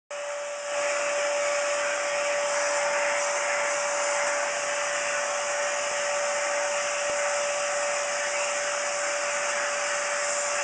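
Vacuum cleaner motor running steadily, a constant rushing noise with a steady whine, growing louder under a second in.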